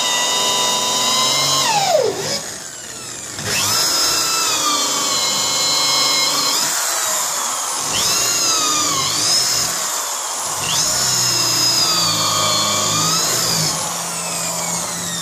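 Power drill boring ½-inch holes through a wooden door with a step bit. The motor whine comes in several separate runs; its pitch dips as the bit bites and falls away as each run ends.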